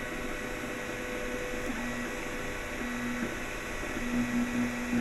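Anet A8 3D printer printing. Its stepper motors whine in short low tones that start, stop and shift pitch as the print head moves, over the steady whir of the hotend cooling fan.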